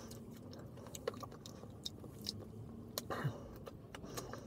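A person chewing fresh raspberries, with soft scattered clicks and smacks of the mouth, and a brief louder sound about three seconds in.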